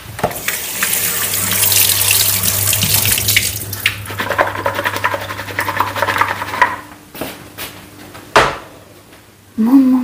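Kitchen tap running water into a sink for about six and a half seconds, then shut off. A few light knocks and one sharp knock follow.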